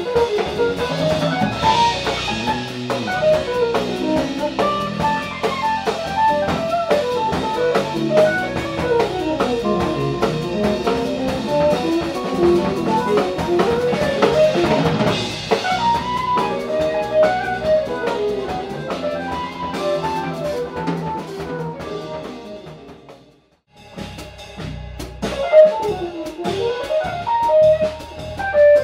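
Live jazz-fusion band playing: drum kit, electric guitar, electric bass and synthesizer, with quick melodic lines over busy drumming. About 23 seconds in the music fades and drops out for a moment, then comes back in with a loud accent.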